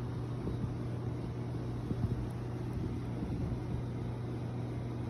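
Steady low mechanical hum, with a few faint knocks about two seconds in.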